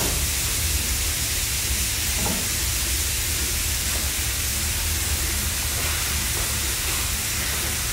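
Beef slider patties sizzling on a hot griddle: a steady hiss over a low, even rumble.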